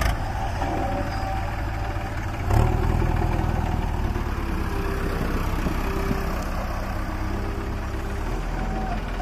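Diesel engines of a JCB backhoe loader and a tractor running steadily, the low rumble growing louder about two and a half seconds in.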